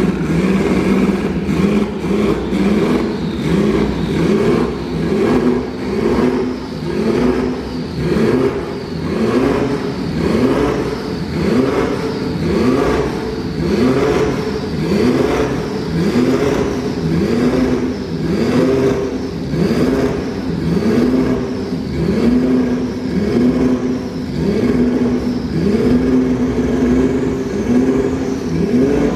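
Porsche 911 Carrera RSR Turbo 2.1's turbocharged flat-six engine revved over and over, the pitch climbing and dropping back roughly once a second, with a high whine rising and falling along with each rev.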